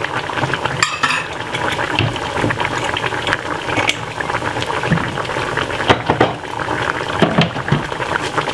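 Lamb in red wine sauce bubbling in a saucepan on the hob over medium heat, a continuous crackle of small popping bubbles as the sauce simmers down to reduce.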